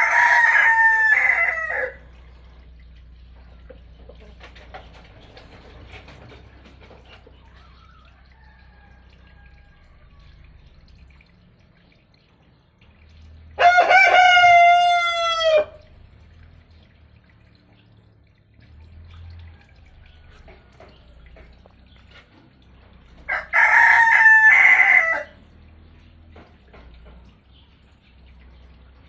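A rooster crowing three times, about ten seconds apart, each crow about two seconds long.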